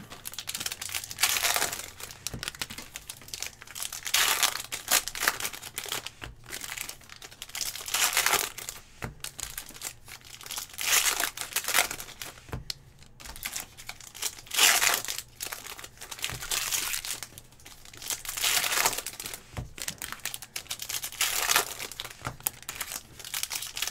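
Foil wrappers of trading-card packs crinkling and tearing as they are ripped open by hand, in repeated bursts a few seconds apart.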